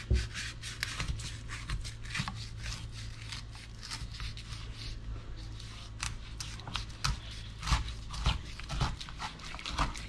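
Chef's knife sawing back and forth through a thick, tough slab of raw shovelnose shark meat on a wooden cutting board, in many short scraping strokes with a few dull knocks.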